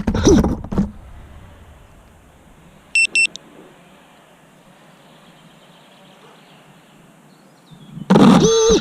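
Two short high electronic beeps about three seconds in, over a quiet steady background hiss. A loud sound with a wavering pitch cuts off just under a second in and returns about eight seconds in.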